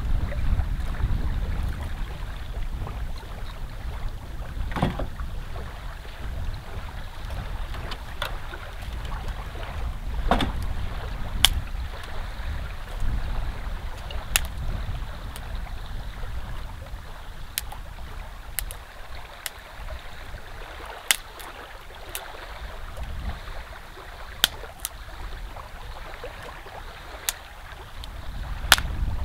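Wind buffeting the microphone in a steady low rumble, easing in the second half, with about a dozen sharp snaps scattered through.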